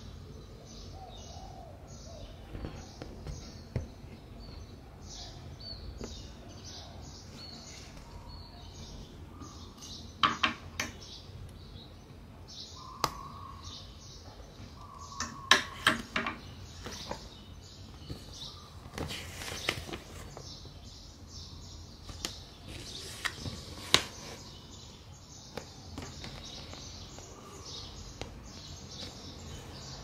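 Cross-stitching by hand: sharp clicks of the needle and a longer rasp of thread drawn through the fabric about two-thirds of the way in. Birds chirp steadily in the background over a low hum.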